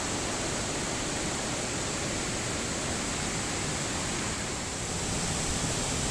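Steady rushing of a large multi-tiered waterfall, an even wash of water noise with no breaks.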